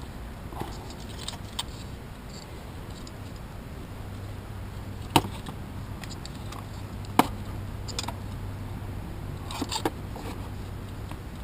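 Small hand tools and parts of a door lock actuator being handled during disassembly: two sharp clicks about five and seven seconds in, and a few light ticks near the end, over a faint low hum.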